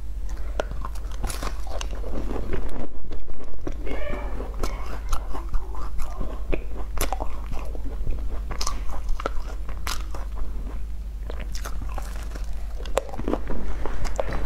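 Biting and chewing of flaky baked chestnut cakes, close to the microphone: a stream of crisp crackles and clicks from the pastry crust at an uneven pace.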